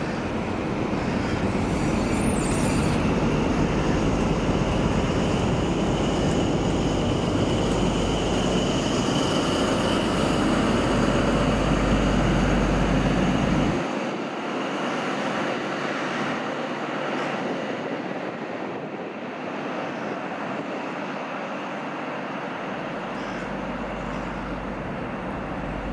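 Class 43 HST passing close by: the coaches and rear power car rumble and rattle over the rails. About 14 seconds in, the deep rumble drops away sharply and the train fades as it runs off into the distance.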